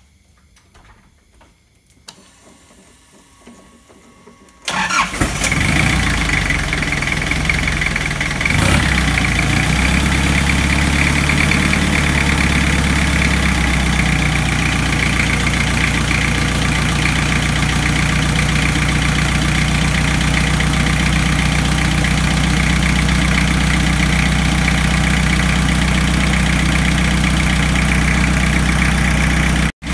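Nissan QD32 four-cylinder turbo-diesel engine, just reinstalled after repair, starting about five seconds in and then idling steadily.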